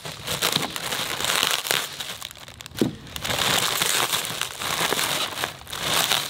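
Crinkling and rustling of a silver foil cooler liner being pulled open and crumpled by hand, in several bursts with short lulls.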